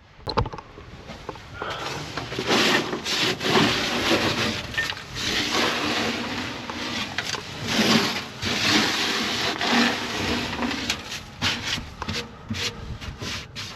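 Repeated scraping and rubbing strokes as old feed and gunk are cleaned out of an emptied sheep feeder, with a run of short knocks near the end.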